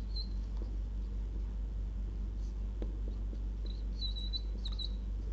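Whiteboard marker squeaking as words are written: one short high squeak at the start and a cluster of squeaks about four seconds in, over a steady low hum.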